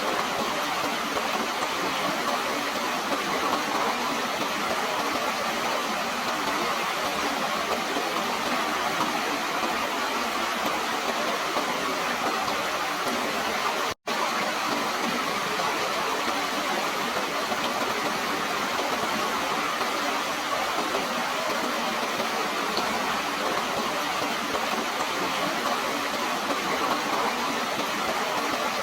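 Steady rushing of running water, an even hiss with no change, cutting out for an instant about halfway through.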